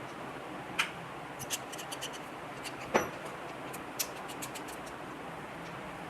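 A few sharp clicks and ticks, the loudest about three seconds in, over a steady background hiss.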